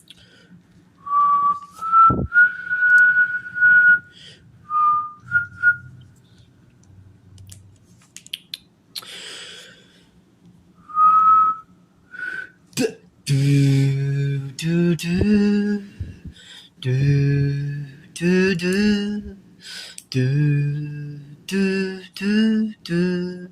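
A man whistling a few short notes of a tune, then humming or singing without words in a low voice for the second half, with small clicks of plastic Lego pieces being handled.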